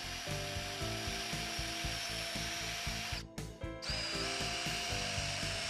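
Cordless drill running a small twist bit into oak, boring a pilot hole for a trim-head screw, with a steady motor whine over the cutting noise. It stops briefly about three seconds in, then starts again.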